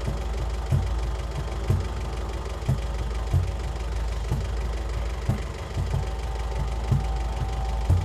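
Background music: a low droning bass with a soft drum thump about once a second.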